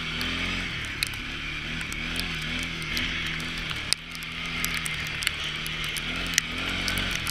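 CFMoto C Force ATV engine running under riding, its revs rising and falling several times, with scattered sharp ticks over a steady hiss.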